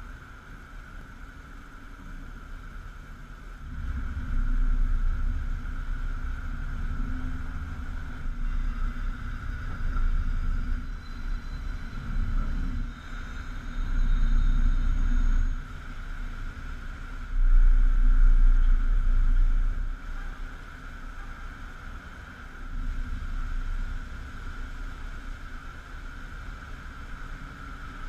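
Thunderstorm outside: a low rumble that swells and fades several times, loudest a little past the middle, over a steady high-pitched hum.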